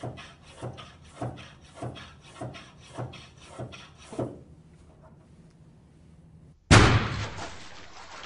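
Rhythmic pumping strokes, about one and a half a second, as water is pumped into a water balloon. They stop after about four seconds. Near the end the overfilled balloon bursts with a sudden loud pop, and water splashes and runs out.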